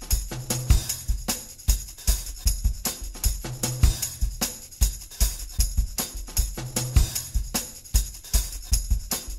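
Background music with a steady drum beat and a repeating bass line.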